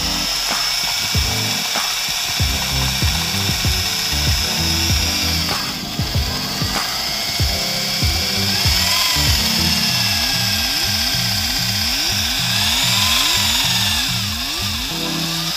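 Electric hand drill running steadily at speed, driving a small homemade hydraulic pump; its whine bends up and back down briefly twice. Music plays over it.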